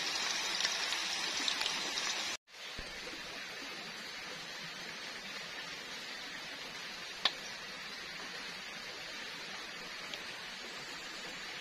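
Food deep-frying in a pan of hot oil, a dense steady sizzle with fine crackling, cut off abruptly after about two and a half seconds. It gives way to a quieter steady sizzle with one sharp tap about seven seconds in.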